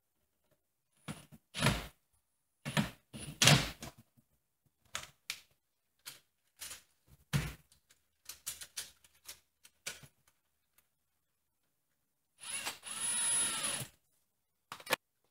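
Stainless steel chimney pipe sections clinking and knocking as they are handled and fitted together, with a cordless drill running for about a second and a half near the end.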